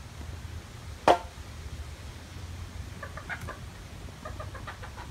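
A single sharp knock about a second in: a mini-golf ball striking the course's hard edge or obstacle, with a brief ringing after it. Short faint chattering or chirping sounds follow a couple of seconds later.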